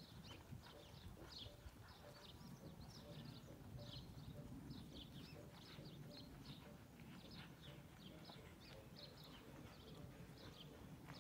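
Faint outdoor sound of a horse cantering on a sand arena, its hoofbeats dull and muffled, with birds chirping over it throughout in many short, falling notes.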